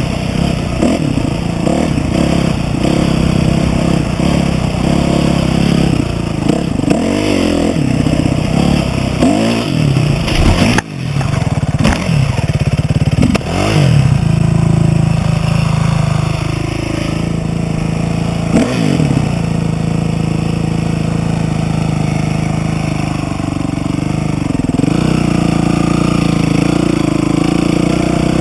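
Dirt bike engine being ridden, revving up and falling back again and again, then holding a steadier pitch for several seconds before rising and falling again near the end. There is a brief sudden drop in sound about 11 seconds in.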